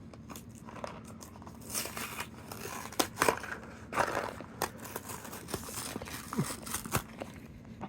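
A small cardboard minifigure box being torn open and its contents unwrapped by hand: irregular tearing, crinkling and rustling with scattered sharp clicks.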